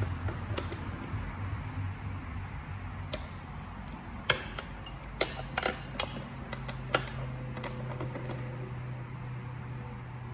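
Scattered light clicks and taps of hands handling motorcycle tail parts and wiring, most of them in the middle of the stretch. Under them run a steady high hiss and a low hum.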